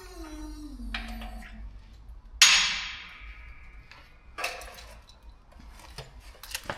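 Metal-on-metal strikes from tools and parts. One loud ringing clang comes about two and a half seconds in, with lighter knocks and clinks before and after it, and a falling ringing tone fades away in the first second and a half.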